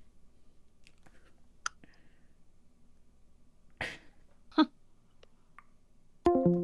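Mostly quiet room tone with a few soft clicks. Two short vocal noises about four seconds in, like a cough or hiccup. A steady electronic tone starts near the end.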